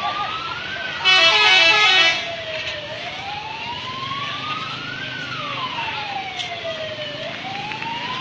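A one-second blast of a multi-tone 'telolet' bus horn about a second in, over a siren slowly wailing up and down.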